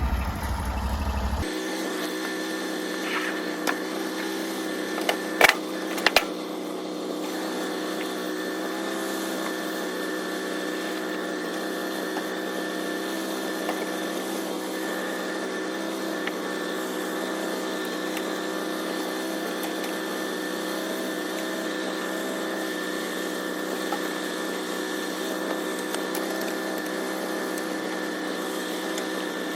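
Norwood portable sawmill's engine running at a steady speed. There are two sharp knocks about five and six seconds in.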